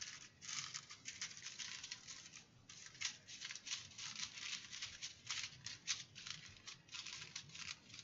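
Small plastic bags of diamond-painting drills crinkling and rustling as they are picked up and moved around by hand, in quick irregular crackles.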